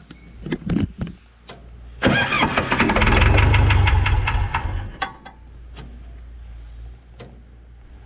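Case 188 diesel engine on a 1968 Case 580CK tractor being cranked over by its starter, starting suddenly about two seconds in and loud for about three seconds before dropping to a quieter steady sound. The engine is struggling to get fuel, a fuel starvation problem, so it turns over without settling into running. A few scattered clicks come before the cranking.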